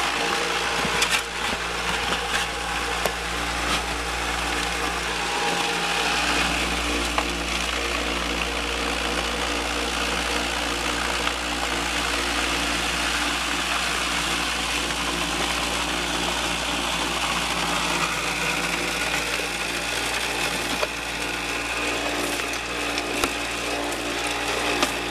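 A homemade shaker box deck running, with a steady mechanical hum and rattle from the vibrating deck and the hiss and splash of water spraying from a PVC spray bar onto gravel on the classifier screen. A few sharp knocks come about a second in and again near the end.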